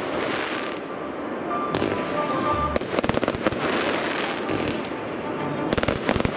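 Fireworks display: aerial shells bursting in the sky with a dense, continuous crackle. Rapid volleys of sharp bangs come about three seconds in and again near the end.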